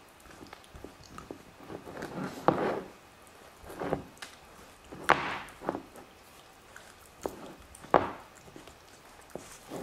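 Dobermann puppy gnawing a large bone on a hard floor: irregular chewing and scraping, with a few sharp knocks, the loudest about two and a half, five and eight seconds in.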